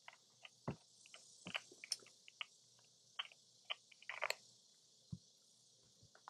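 Scattered light clicks and taps from small objects being handled, about a dozen irregular ticks with a short cluster about four seconds in, over a faint steady hiss.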